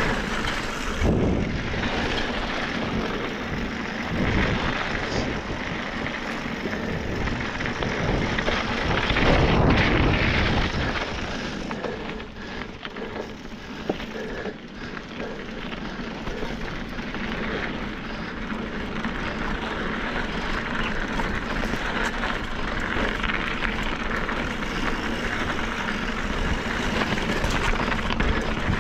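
Riding noise from a Specialized Fuse Comp 29 mountain bike on a frozen sandy trail: tyres rolling and the bike rattling over the ground, with wind rushing on the microphone. It swells to its loudest about a third of the way in and eases off briefly near the middle.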